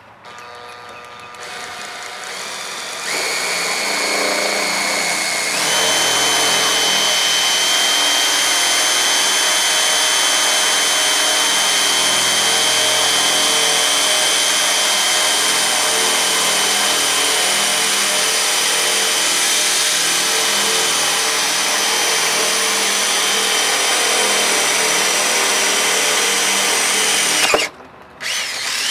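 Cordless drill boring through a fibreglass boat transom with a size 404 bit, enlarging a pilot hole. The motor whine builds and steps up in speed twice in the first six seconds, then runs steadily. Near the end it stops briefly and starts again.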